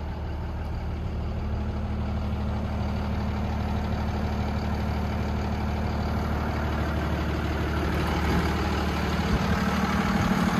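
Cummins ISB six-cylinder diesel engine of a Freightliner M2 truck idling steadily, heard from the cab, growing a little louder near the end.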